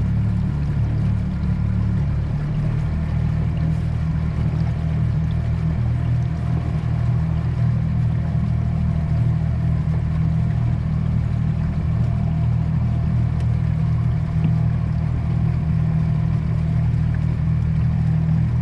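A boat's motor running steadily underway, a continuous low drone heard from aboard the boat.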